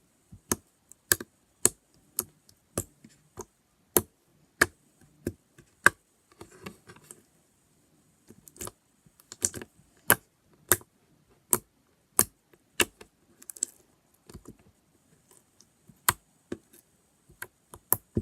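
Glitter slime being squeezed and poked by hand, making sharp clicking pops about one or two a second, with quieter squishing in between.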